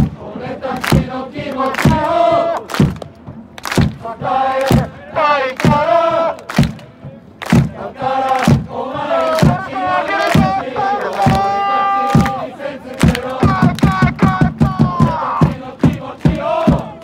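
A football supporters' section chanting and singing a club song in unison, with sharp rhythmic clapping that speeds up in the second half. One long held note comes a little past halfway.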